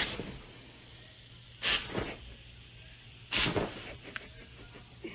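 An animal hissing in three short bursts about 1.7 seconds apart.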